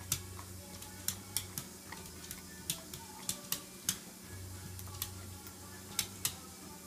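Dog licking whipped cream off a metal hand-mixer beater, its teeth and tongue knocking the wires in sharp, irregular clicks, about a dozen of them.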